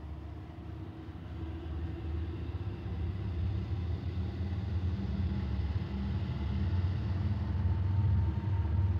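Norfolk Southern diesel locomotive rumbling low and steady in the distance, growing gradually louder as it approaches, with a faint steady whine above the rumble.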